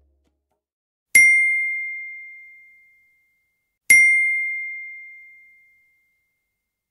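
Two identical single-note chime dings, nearly three seconds apart. Each is a bright strike on one high ringing tone that fades away over about two seconds.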